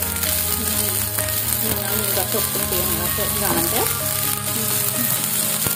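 Fried rice with vegetables sizzling in a hot nonstick wok as it is stirred and turned with a silicone spatula.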